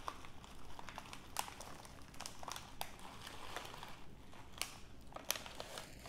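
Clear plastic snack bag crinkling as honey roasted peanuts are poured out of it onto a paper towel, with irregular sharp clicks and rustles of the nuts and bag.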